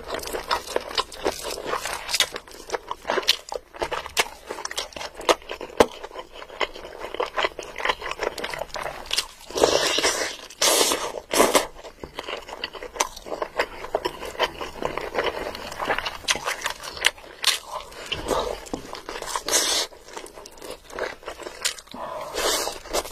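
Close-up eating sounds: chewing and smacking of spicy curry, chicken and biryani rice eaten by hand, with fingers squishing the saucy rice. Many quick wet clicks, with a few louder noisy bursts about ten seconds in and near the end.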